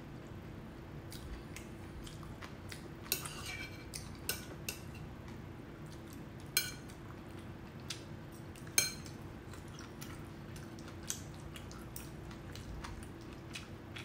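Metal chopsticks and a spoon clinking against ceramic bowls while eating noodles: scattered sharp clinks, the loudest about nine seconds in, over a steady low hum.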